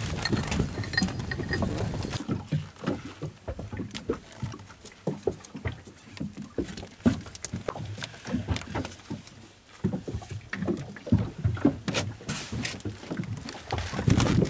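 Handling noise as a spiny dogfish is worked free of a gill net and held on a boat deck: irregular knocks, taps and rustles of net and fish against the hull, with no steady engine sound.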